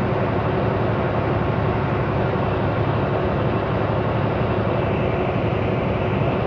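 Semi truck driving at a steady speed: a constant engine and road drone as heard inside the cab.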